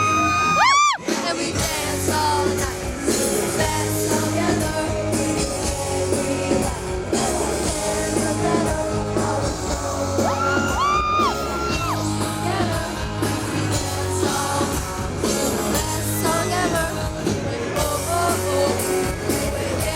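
Live pop-rock band and singing voices played loud over a concert PA in a large space. Shrill screams from the crowd rise above the music near the start and again about ten seconds in.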